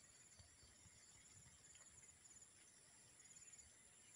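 Near silence with faint, high-pitched insect trilling that comes and goes in short runs.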